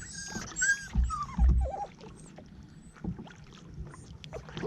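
Dog whining in a quick run of short, high, falling cries over the first second and a half, a nervous dog aboard a kayak. Low knocks of the paddle or the dog against the kayak hull, the loudest about a second and a half in, and quieter water and paddle sounds follow.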